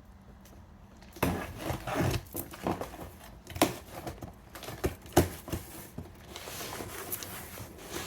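Parcel being torn open by hand: packaging tearing and crinkling, with irregular rustling and a few sharp knocks as the contents are handled. It starts about a second in.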